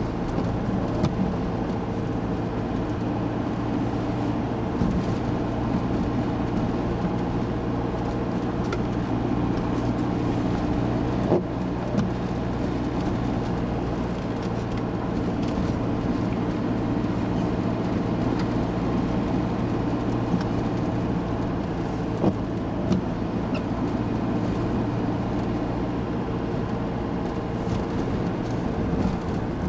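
Steady engine drone and tyre noise on a wet road, heard from inside a moving vehicle driving at a constant pace, with a few sharp clicks about a third and three-quarters of the way through.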